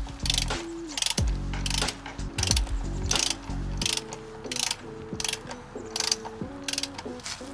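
Hand ratchet clicking in short bursts, about two a second, over background music with a stepping melody.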